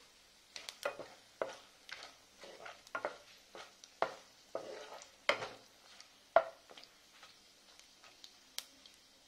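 Wooden spatula stirring whole spices in hot oil in a granite-coated pan: a busy run of taps and scrapes against the pan for the first six seconds or so, then only a few, over a faint sizzle of cumin seeds, dried red chillies and bay leaf frying.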